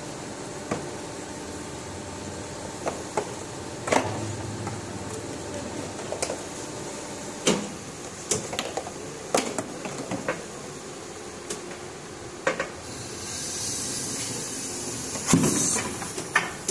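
Blow-molding workshop: a steady machine hum with scattered sharp knocks and clacks as hard blow-molded plastic lotas are handled and trimmed by hand. A few seconds of air hiss start about thirteen seconds in, with a louder knock near the end.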